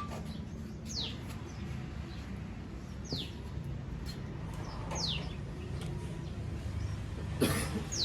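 A bird repeats a short, quickly falling whistled call about every two seconds over a steady low hum. A single sharp knock sounds near the end and is the loudest moment.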